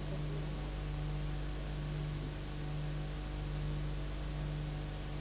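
Steady low electrical mains hum under a constant hiss.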